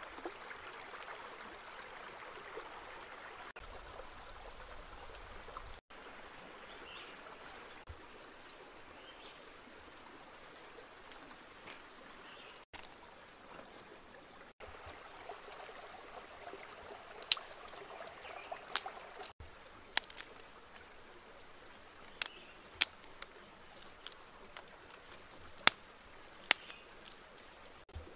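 A shallow stream trickling over rocks throughout. In the second half comes a scattering of sharp cracks and clicks as dry twigs are handled and stacked for a fire.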